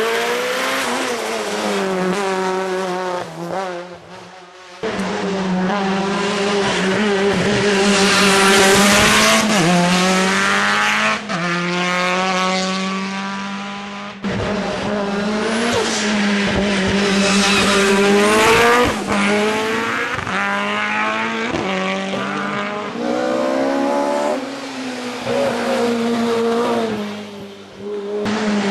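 Race cars coming through the bends one after another, their engines revving hard and rising in pitch through the gears, dropping back at each shift or lift-off.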